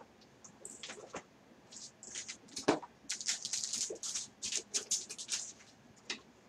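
Packaging rustling and crinkling in short irregular bursts as craft supplies are handled and taken out of a box, busiest in the second half.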